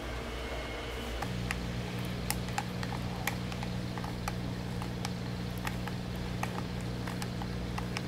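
A small plastic hand-worked cord-knitting spool clicking irregularly, a few sharp clicks a second, as it is turned and its hooks catch the yarn. A steady low hum comes in about a second in.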